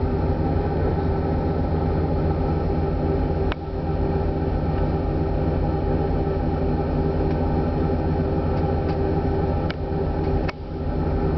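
Steady low drone of a Viking Line car ferry's engines and machinery, heard inside a passenger cabin. A few faint clicks and two brief dips in level come about three and a half and ten and a half seconds in.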